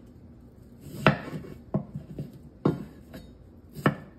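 A chef's knife cutting through Charentais melon and knocking on a bamboo cutting board. There are four knocks, roughly a second apart, the first about a second in.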